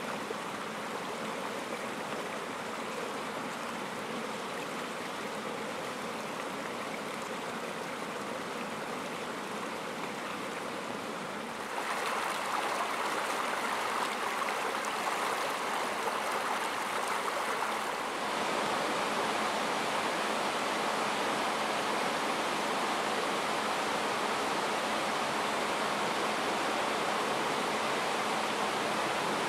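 Steady rush of a partly iced-over river running through rapids and over a low weir. It steps louder about twelve seconds in.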